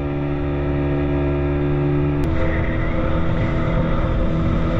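Outboard motor of a small speedboat running steadily at speed. About two seconds in, the sound changes abruptly to a louder mix of the engine with rushing water and wind.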